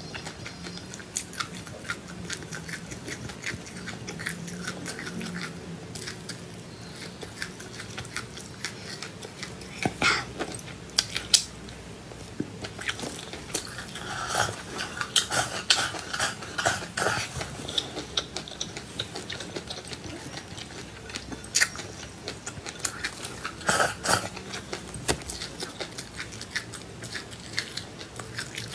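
A person chewing and biting food, with many crisp crunches and clicks coming in irregular clusters. The louder clusters come about a third of the way in and again past the middle and near the end.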